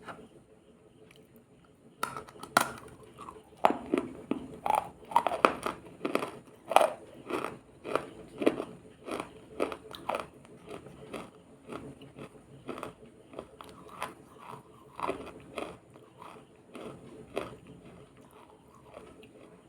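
Close-up crunching as something hard and brittle is bitten and chewed: irregular sharp crunches start about two seconds in, come thickest in the middle and grow sparser toward the end.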